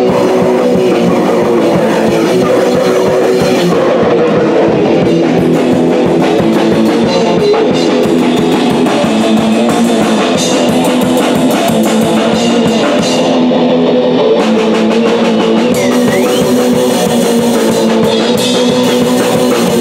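Punk rock band playing electric guitar and drum kit, loud and without a break.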